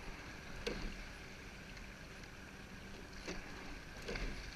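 Eight-oared rowing shell under way: a steady wash of water along the hull, with a few short, sharp knocks and splashes from the oars working in the water and oarlocks.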